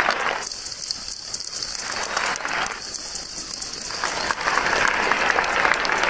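Large stadium crowd applauding, a dense patter of clapping that dips twice for about a second each.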